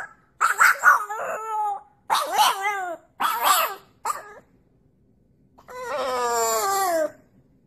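French bulldog howling: four short wavering yowls, a pause, then one longer howl that slides down in pitch.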